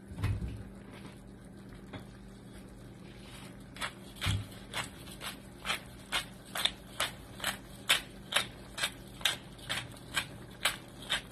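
Hand pepper mill grinding black pepper, a short crunch with each twist, about two a second, starting a few seconds in.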